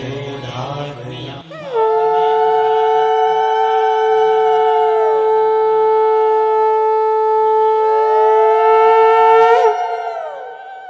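Conch shells (shankha) blown in a long, steady blast on one note, with a second note swelling and falling beside it, as is done to mark auspicious moments in a Bengali Hindu wedding. The blast starts about two seconds in and fades away near the end.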